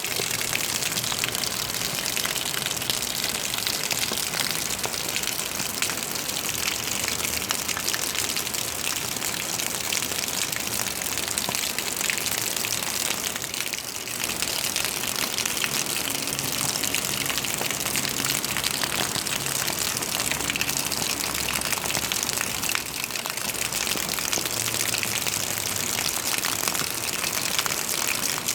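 Water rushing and splashing steadily, a dense hiss with fine crackle and no pauses.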